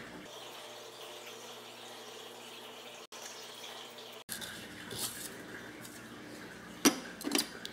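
Light handling sounds of a hydroponic garden's plastic pod holder and aluminium-foil pod covers being taken off, a few short crinkles and clicks near the end, over a faint steady hum.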